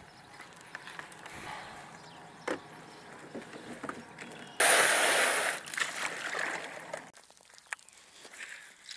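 A small metal jonboat being boarded and launched: knocks and rattles of gear and a wooden paddle against the hull, with water sloshing. A loud rush of noise lasts about a second just before the middle.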